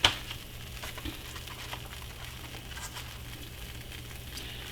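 Grilled cheese sandwich frying in a pan with faint sizzling and scattered crackles. A single sharp knock comes right at the start.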